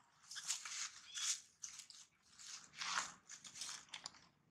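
Dry fallen leaves rustling and crunching in irregular bursts as two monkeys wrestle on them, in two spells about two seconds apart.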